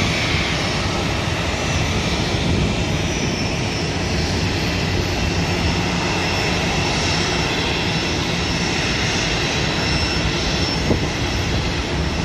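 Jet airliner engines running steadily on the apron: an even rumble with a thin high whine over it.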